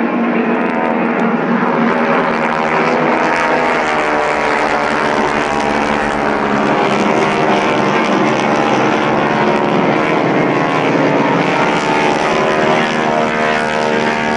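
Formation of propeller airplanes flying overhead: a loud, steady drone of several engines together, their pitches drifting slightly against one another.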